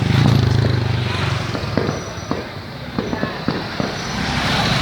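Fireworks going off: a scattered string of sharp pops and cracks starting about a second and a half in, over a steady low engine hum from road traffic.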